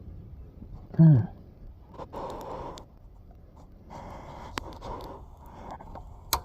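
Hand-tool work on motorcycle fasteners: rubbing and scraping noises with two sharp clicks, and a loud, short sound falling in pitch about a second in.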